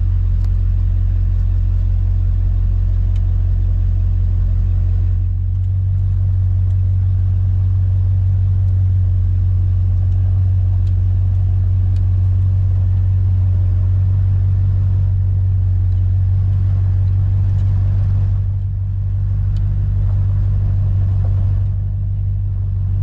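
Ford 5.0 EFI small-block V8 in a 1949 Ford sedan running under way, heard from inside the cabin as a steady low drone with road noise. It eases off briefly about five seconds in and twice near the end.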